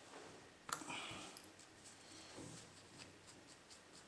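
Faint handling sounds: a sharp click a little under a second in, then soft rubbing as a tissue wipes a chip on a laptop motherboard, with a few small ticks after.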